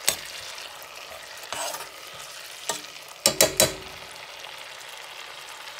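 A block of butter melting and sizzling in a pot with garlic and ginger, the first stage of making niter kibbeh (Ethiopian spiced clarified butter). A steady frying hiss runs under a few sharp knocks, the loudest a quick run of three about three and a half seconds in.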